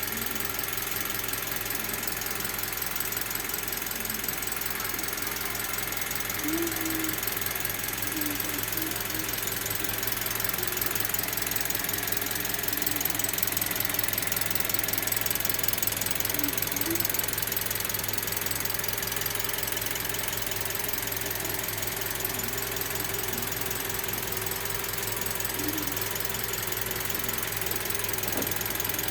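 Toyota Calya's 1.2-litre four-cylinder petrol engine idling steadily while being warmed up.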